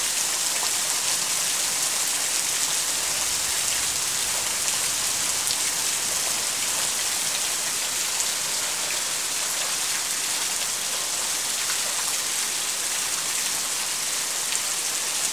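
Heavy rain pouring down in a steady, even downpour.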